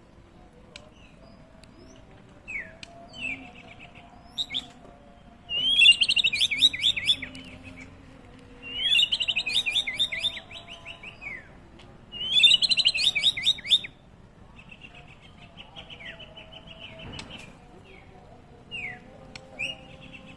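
White-rumped shama (murai batu) singing: three loud, roughly two-second bursts of rapid repeated notes, with single short falling whistles in between.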